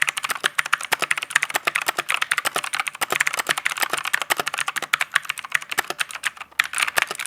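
Fast, continuous typing on the Fantech Atom MK876 tenkeyless mechanical keyboard's blue clicky switches: many sharp clicks a second, with a brief pause about six and a half seconds in.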